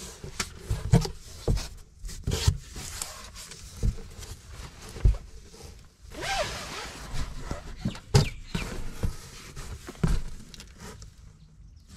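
Unpacking by hand: cardboard box flaps and cloth wrapping rustling and scraping, with irregular bumps and knocks as seat cushions are handled and lifted out. A longer rustle comes a little after six seconds in.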